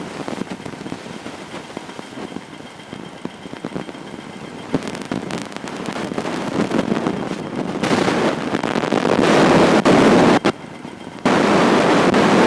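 Royal Enfield Thunderbird 350 motorcycle running, a dense rapid crackle of pops that grows louder about two-thirds of the way in and cuts out briefly near the end before returning.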